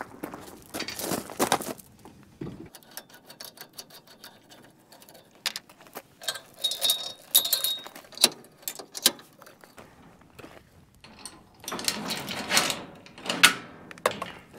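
Metal clicks and rattling as a trailer coupler latch and its safety chains are fastened to a pickup's hitch ball mount, with one brief metallic ring in the middle. Footsteps crunch on gravel near the start and again near the end.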